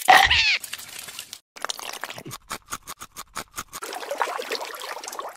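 Water sound effects: a brief squeal with bending pitch, a quick run of clicks about six a second, then water pouring and trickling.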